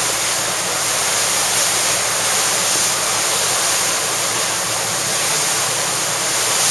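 Steady rushing hiss of wind and water on a choppy sea, loud and even throughout.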